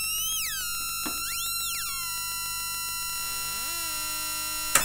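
Three analog oscillators of a DIY Triple Toasted Oscillator module sounding together as a sustained buzzy chord. One voice's pitch is swept up and back down twice by hand on its frequency knob, then a lower voice glides up about three and a half seconds in. A sharp click comes near the end.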